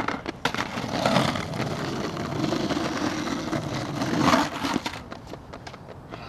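Skateboard wheels rolling over rough pavement, a continuous gritty rumble that starts about half a second in, builds, and stops a little under five seconds in.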